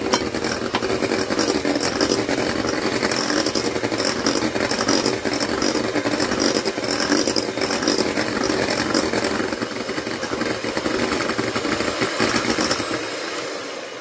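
Electric hand mixer running steadily, its two beaters whisking thin egg-and-sugar cake batter in a bowl; the motor winds down near the end.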